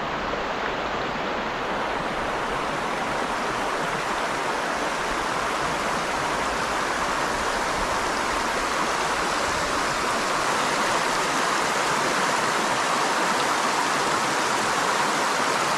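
River water rushing in white rapids over a shallow, mossy rock ledge: a steady rush that grows slightly louder toward the end.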